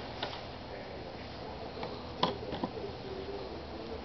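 Cardboard jigsaw puzzle pieces being picked up and pressed down on a wooden tabletop: a few scattered light taps and clicks, the sharpest a little past halfway.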